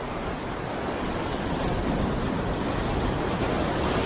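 Sea surf breaking and washing over shoreline rocks: a steady rushing with no separate impacts.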